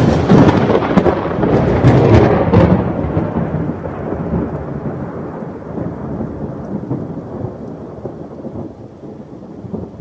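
Thunder: a loud crack at the start that rumbles on and slowly fades over several seconds, with rain falling.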